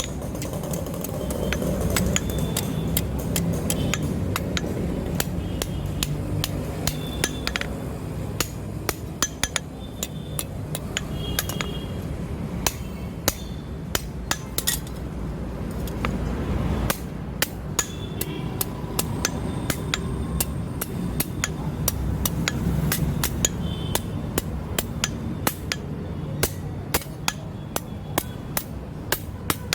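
Blacksmith's hammer striking hot steel on an anvil to forge a billhook, many blows in uneven runs, some ringing briefly, over a steady low rumble.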